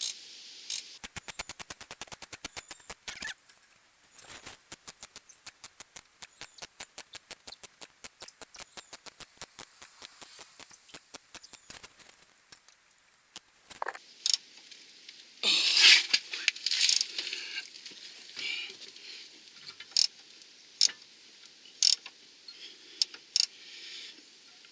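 Ratcheting wrench clicking as the lower nut of a sway bar link spins off easily: a quick run of fast clicks, then a long stretch of steady, slower clicks, then scattered louder metal clicks and rattles in the second half.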